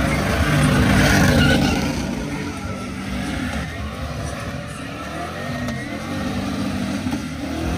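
A truck engine revving hard, loudest about a second in, then running on at a lower, uneven level.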